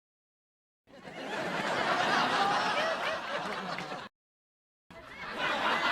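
Sitcom laugh track: canned studio-audience laughter. A burst rises in about a second in, cuts off sharply about four seconds in, and after a short dead-silent gap a second burst starts near the end.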